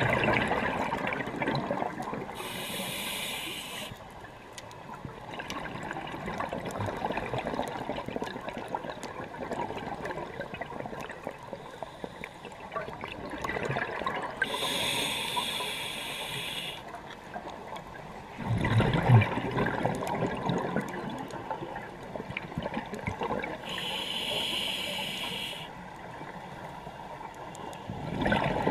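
Scuba diver breathing through a regulator underwater: a hissing inhale three times, roughly ten seconds apart, alternating with louder bursts of exhaled bubbles.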